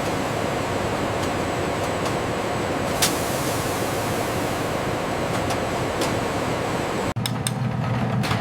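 Steady loud rushing hiss with one sharp click about three seconds in. Near the end it cuts to music with a low percussive beat.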